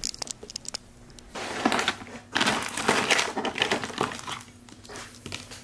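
A hand rummaging through a desk drawer of pens, markers and papers. A run of quick clicks comes first, then several bouts of rustling and scraping as plastic pens rattle and paper shifts.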